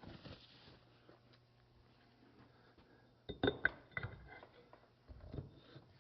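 A few sharp knocks and clicks of parts being handled while the concrete pump's hydraulic slewing cylinder is put back together: a quick cluster of them about three and a half seconds in and a couple more near the end, over a faint steady hum.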